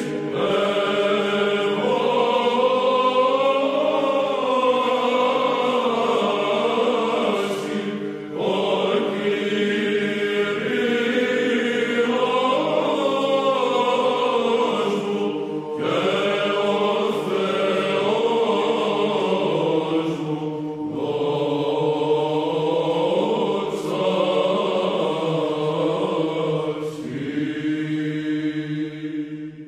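Greek Byzantine choir chanting a hymn in phrases over a steady held drone note (the ison), with brief pauses between phrases. The last note is held and stops near the end.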